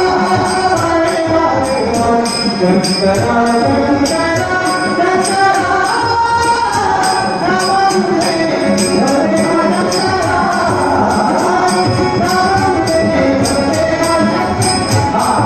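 Marathi abhang bhajan: a singing voice over harmonium, with jingling percussion keeping a steady beat.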